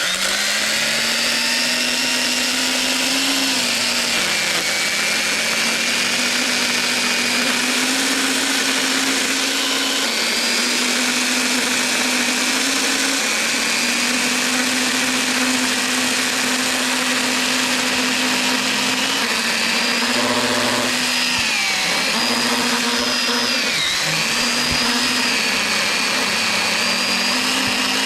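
Echo 3006 battery-powered electric pruning saw running at full speed while its chain cuts through a limb about six inches thick. Its motor whine stays steady, and its pitch sags briefly a few times as the chain bogs under load, most clearly about two-thirds of the way through.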